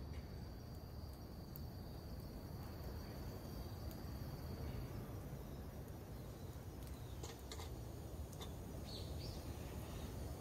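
Quiet woodland ambience: an insect's steady high-pitched trill that stops about halfway through, a small campfire crackling now and then, and a short bird chirp near the end, over a steady low rumble.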